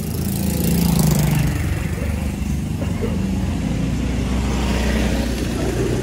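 Motor scooter engine running close by, loudest about a second in, then a steady engine hum.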